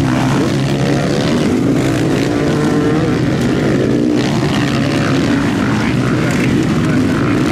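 Several motocross bike engines running hard at once. Their overlapping pitches rise and fall as the riders open and close the throttle.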